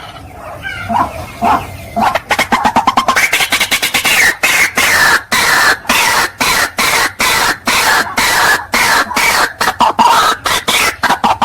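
White-breasted waterhen calling: softer notes for about two seconds, then loud, rapidly repeated calls at about four a second.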